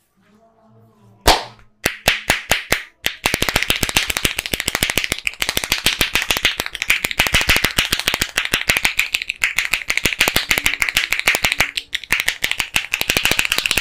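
Barber's percussive head massage: hands clapping and slapping on the head. One sharp slap about a second in and a few separate slaps, then a long, fast run of many claps a second that stops abruptly near the end.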